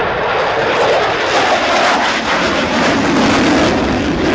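Loud roar of a military jet flying past, with the pitch of the roar slowly dropping.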